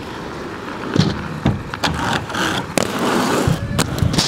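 Skate wheels rolling over concrete with a steady rumbling hiss, broken by several sharp clacks and knocks.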